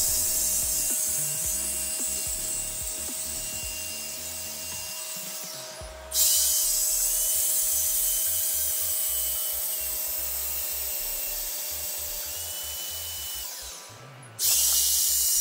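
Janvitha 550 W handheld electric HVLP paint sprayer running while spraying wood primer: a steady airy hiss over a thin high motor whine. The sound stops and starts again abruptly about six seconds in and once more near the end, slowly fading within each stretch.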